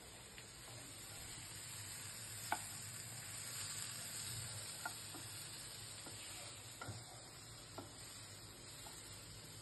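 Mixed vegetables sizzling in butter in a non-stick frying pan as a spatula stirs them. A few light knocks of the spatula against the pan come through, the loudest about two and a half seconds in.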